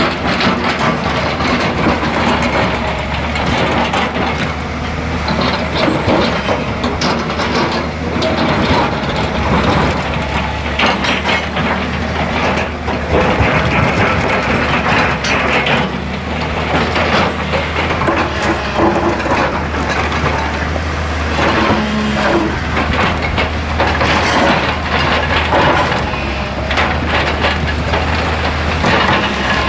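Excavator engine running steadily with a low drone, under a continuous crunching and clattering of stone.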